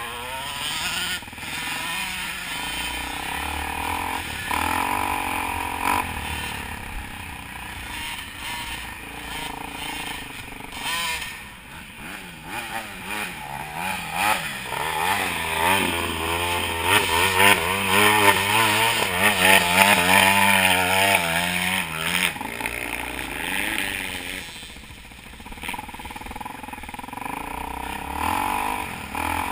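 Off-road dirt bike engines heard from the following rider's own bike: the engine speed rises and falls over and over as the throttle is worked along a rough trail, busiest about halfway through and easing off near the end. A small dirt bike runs just ahead.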